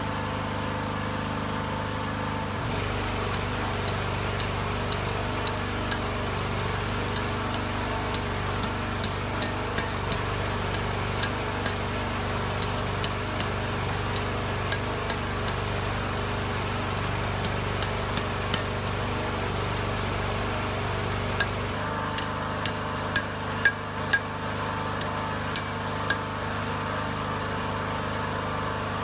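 Hand hammer striking a red-hot half-inch steel rod on an anvil as it is bent into a U-shaped anchor. The strikes are sharp, irregular and come in runs, over a steady machine hum.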